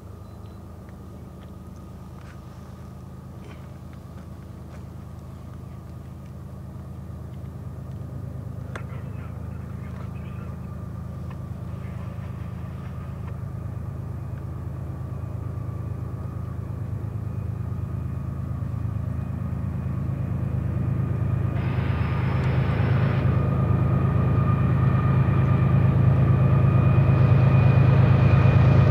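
BNSF freight train's three diesel locomotives approaching, their engine rumble growing steadily louder, with a faint steady high tone over it. A brief hiss about three quarters of the way through.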